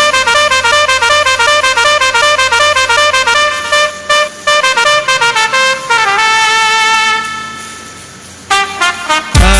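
Background music: a brassy, horn-like melody repeating a quick stepping figure, which thins out and fades about two-thirds of the way through. A loud beat with heavy bass kicks in near the end.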